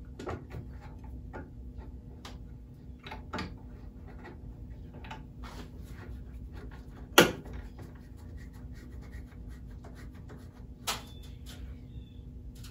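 Small clicks and scrapes of a wood-turning gouge being shifted and set in a wooden sliding jig against a stopped grinding wheel, with one sharp knock about seven seconds in and a lighter one near the end. A steady faint hum runs underneath.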